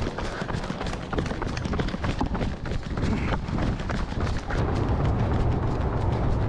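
A runner's footsteps on asphalt with wind buffeting a body-worn action camera's microphone, the low wind rumble growing steadier in the last couple of seconds.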